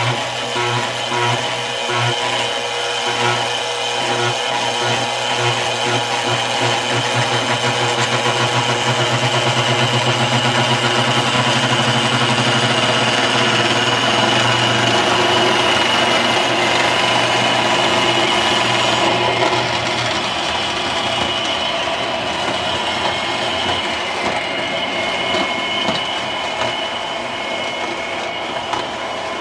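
Lionel O-gauge model train running on its track: the locomotives' motors give a steady electric hum and whine, and the wheels rumble as the string of hopper cars rolls past. It grows louder over the first ten seconds and eases off somewhat after about twenty seconds.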